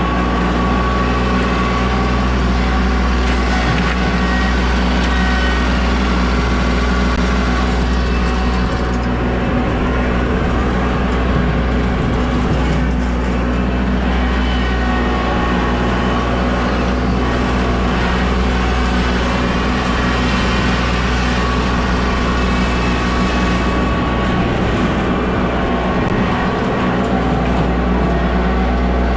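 A heavy engine running steadily, with a constant low drone and little change in speed.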